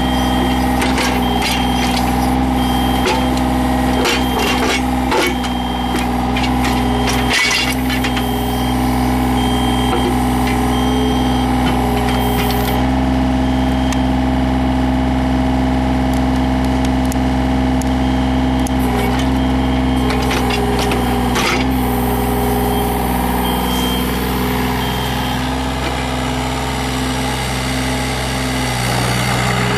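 Yanmar VIO35-3 mini excavator's three-cylinder diesel running steadily under hydraulic load while digging, with scattered knocks and scrapes of the bucket and an intermittent high beeping. The engine note shifts near the end.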